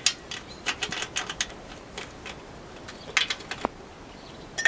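Socket ratchet's pawl clicking as the handle is swung back on a bolt, in a quick run of clicks at first, another short run about three seconds in, and a single click near the end.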